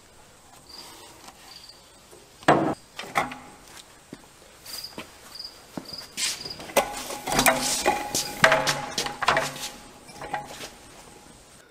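A transmission on a transmission jack is handled and strapped down: a loud knock about two and a half seconds in, then a run of clicks and metal rattles. Crickets chirp in short bursts in the background.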